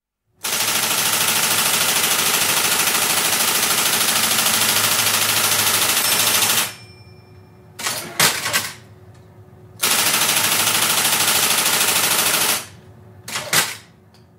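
Electric typewriter underlining, the underline key repeating in a rapid, even stream of strikes. A long run lasts about six seconds, then a shorter run lasts about three seconds, and each is followed by a few separate clacks over the machine's faint steady hum.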